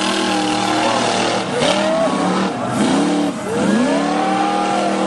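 Monster truck engine revving, its pitch dropping and climbing back up several times.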